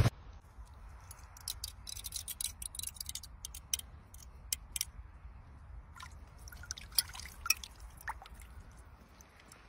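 Water and broken ice giving light, irregular clicks and drips around a bather standing in a hole cut in lake ice. The clicks are dense over the first few seconds and sparser later, over a low steady rumble.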